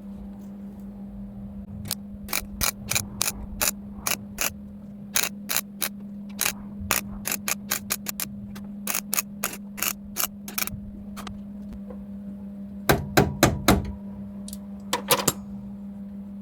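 Welder tacking a steel patch panel onto car bodywork: a string of short, sharp crackling tacks at an irregular pace, with a steady hum underneath. A cluster of heavier knocks comes near the end.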